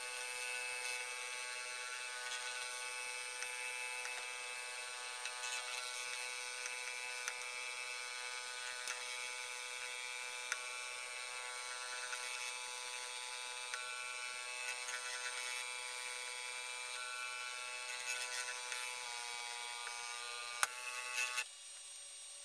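Stepper motor and gearbox of a homemade universal testing machine's 3D-printed linear actuator, running steadily with a whine of several tones as it slowly loads a 3D-printed test piece. Near the end there is a single sharp crack as the piece fails, and the motor stops a moment later.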